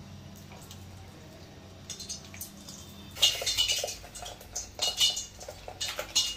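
Faint steady hum, then from about three seconds in a run of metallic clinks and scrapes with a slight ring, as a pan is tipped against a steel bowl and curry is poured out.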